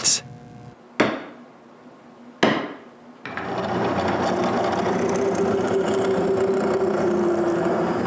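Two sharp hammer taps on a punch marking bolt holes in a maple block, one about a second in and one about 2.5 s in. From about 3 s a drill press runs steadily with a held hum, its bit boring into the maple.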